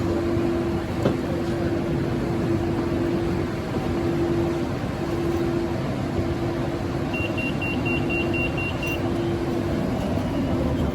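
BTS Skytrain electric train running with a steady rumble and a hum that keeps breaking off and returning. About seven seconds in, a quick run of about eight short high beeps sounds for some two seconds.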